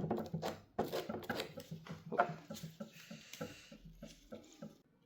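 Quick, irregular scratching and clicking from hand work on a plastic headlight bracket, dying away near the end.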